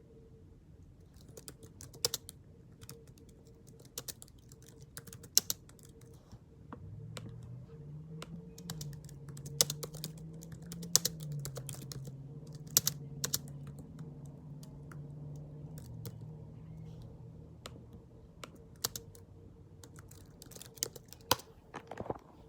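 Irregular light clicks and taps, a few sharper than the rest. A low hum with a slightly wavering pitch comes in about seven seconds in and fades out about ten seconds later.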